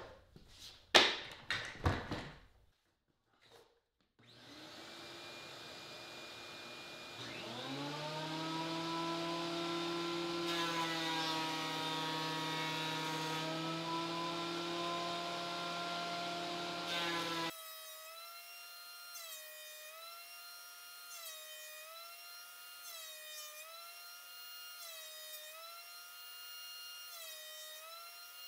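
A few clicks, then a shop vac switches on with a steady rush, and the Bauer 13-inch benchtop planer's motor spins up to a steady whine over it. About 17 seconds in the sound cuts abruptly to a thinner, quieter whine that dips in pitch and recovers again and again.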